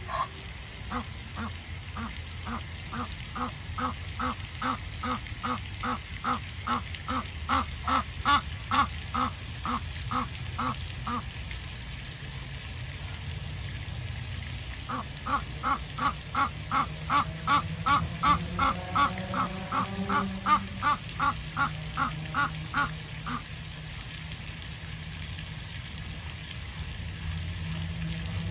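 Waterfowl calling in two long runs of evenly repeated calls, about three a second. The first lasts about ten seconds, and the second, after a short pause, about eight.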